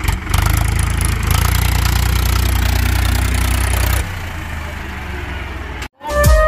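Powertrac Euro 50 tractor's three-cylinder diesel engine running steadily. About four seconds in it drops to a quieter idle. Near the end the sound cuts out and music begins.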